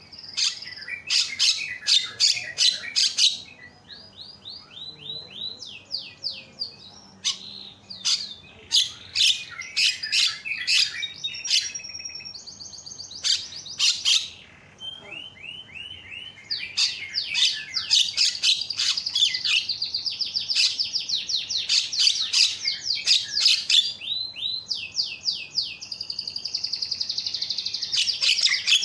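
Javan myna singing: long runs of loud, rapidly repeated notes and fast chattering trills, broken by brief pauses.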